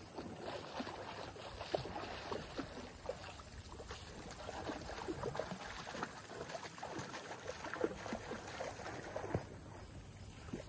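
Lake water splashing and sloshing irregularly as a person wades through the shallows, feet sinking into the soft, muddy bottom.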